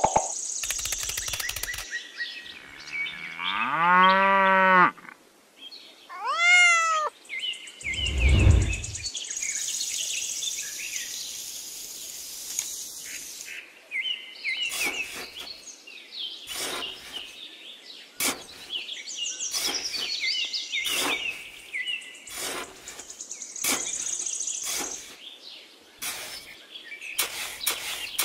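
Birds chirping, with many short scrapes and clicks of a stick and small tool working sand. Two drawn-out animal-like calls rise and fall in pitch about four and six seconds in, followed by a low thud.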